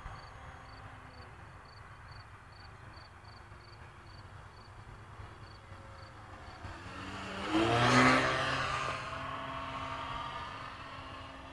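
Robbe Edge 540 model aerobatic plane's motor running in flight. It grows louder as the plane closes in, is loudest as it passes close about eight seconds in, then fades as it moves away.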